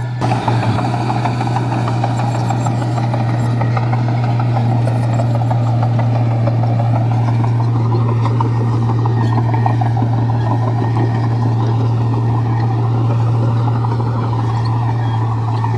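Komatsu bulldozer's diesel engine running steadily, with a constant low hum and a dense rattle over it.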